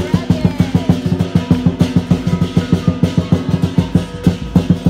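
Lion dance percussion: a big drum beaten in a fast, steady rhythm of about eight strikes a second, with cymbals and gong ringing over it.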